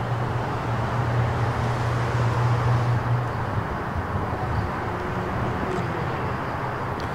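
Mercedes-AMG E63 S twin-turbo V8 idling, a steady low hum that is strongest for the first three seconds or so and then eases off.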